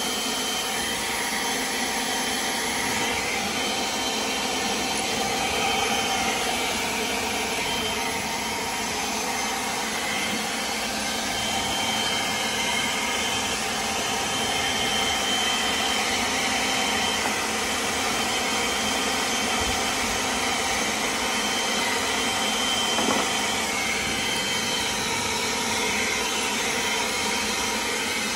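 Leaf blower running steadily: a constant rush of air with a faint steady whine on top.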